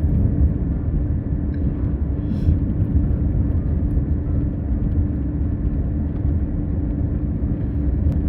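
Camper van driving along an icy mountain road: a steady engine and tyre rumble with a constant low hum.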